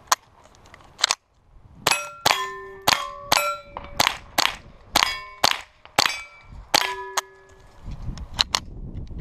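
Ruger 10/22 .22 rimfire rifle fired at steel plates: two single shots, then a quick string of about ten shots over five seconds. Most shots are answered by the ringing clang of a hit steel plate.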